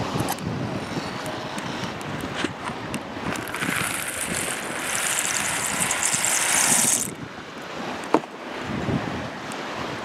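Wind and surf hiss, with a louder rushing rattle from about three and a half seconds in that stops sharply near seven seconds as dry pasta shells are poured into a pot of water. About eight seconds in, a single sharp metallic clink from the pot's lid.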